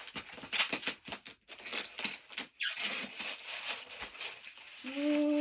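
Packaging being unwrapped by hand, crinkling and tearing in quick irregular crackles. Near the end comes a held vocal "ooh".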